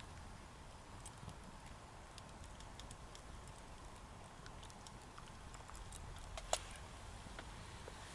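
Faint scattered clicks and crackles over a quiet steady background, with one sharper click about six and a half seconds in.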